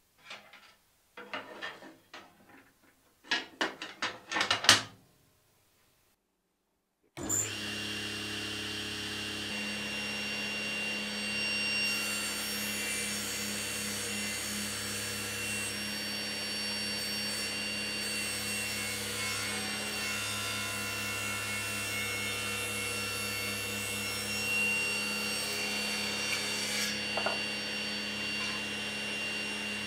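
A few knocks and clicks in the first five seconds, then a Laguna Fusion 3 cabinet saw running steadily from about seven seconds in. From about twelve to about twenty-seven seconds its blade rips lengthwise through a wooden board, adding a hissing cutting sound over the motor's hum.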